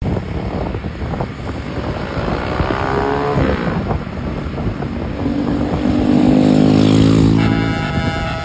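Tour bus engine running loud as the bus goes by, its pitch falling. About seven seconds in, the bus's basuri multi-tone air horn starts sounding a steady chord.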